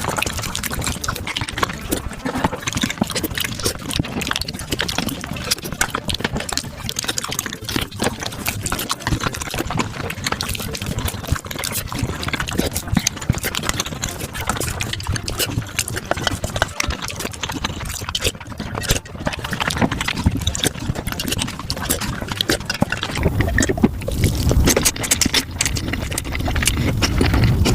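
Mukbang eating sounds of Korean spicy tofu soup sped up to five times speed: a dense run of rapid slurping, chewing and wet clicking. It grows a little fuller and heavier near the end.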